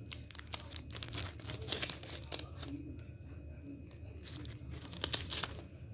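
Clear plastic sticker packet crinkling and rustling as it is handled, in two bouts of rapid crackles: one about a second in, and a louder one near the end.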